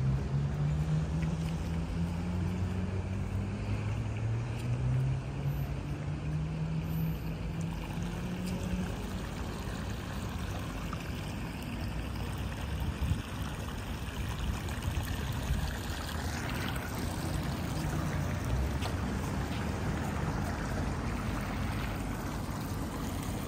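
City street ambience: steady traffic noise, with a passing vehicle's low engine drone shifting in pitch through roughly the first nine seconds.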